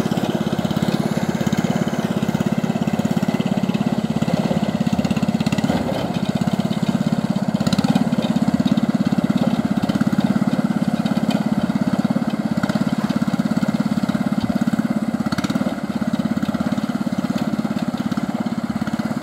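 Hand tractor's single-cylinder diesel engine running steadily with a rapid, even beat as the tractor drives along, hauling a rice thresher.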